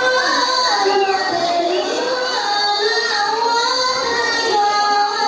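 A high voice singing a slow melody with long, wavering held notes.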